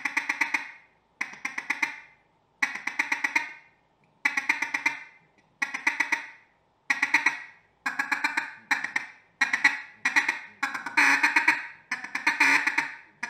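Mallard duck call blown in a feed chuckle: rapid, sharp 'ticka-ticka' notes in bursts of about a second each, about a dozen in all. The pauses between bursts shorten after about eight seconds, so the bursts run closer together.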